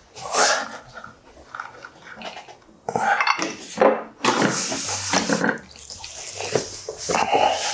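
Ceramic side dishes clinking and knocking as a divided side-dish platter is set down and arranged on a wooden table: a run of sharp clinks with denser clatter through the second half.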